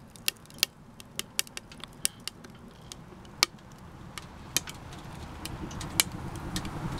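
Wood fire crackling inside a homemade mini-keg wood stove, with irregular sharp pops, over a low rush of air from the draft being pulled up the chimney that grows louder in the second half.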